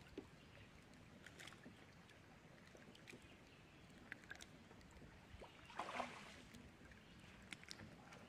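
Near silence: faint outdoor ambience with scattered light clicks, and a short rustle about six seconds in.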